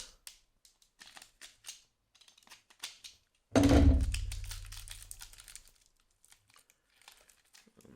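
Packaging being handled and pulled open, with small rustles and clicks of the wrapping. About three and a half seconds in there is a single loud thump that fades out over a couple of seconds.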